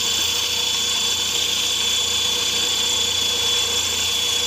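Small 10-inch band saw running steadily, its motor giving a constant high-pitched whine.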